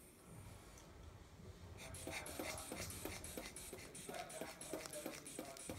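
Rubber inflation bulb of an aneroid blood pressure cuff being squeezed over and over to pump up the cuff. Quick, even strokes of about three a second start about two seconds in.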